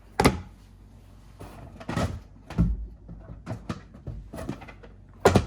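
Plastic golf discs being handled and set down, clacking against each other and a hard surface: a sharp knock about a quarter second in, scattered lighter clacks in between, and another sharp knock near the end.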